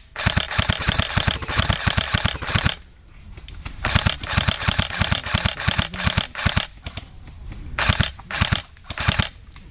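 Airsoft electric rifle firing full-auto with its rapid mechanical rattle: a burst of nearly three seconds, a short pause, another burst of about the same length, then several short bursts near the end.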